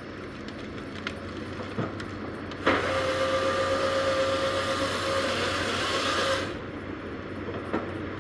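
Heavy machinery engine running steadily. From about three to six and a half seconds in, a loud hiss with a steady whine rises over it, then drops away.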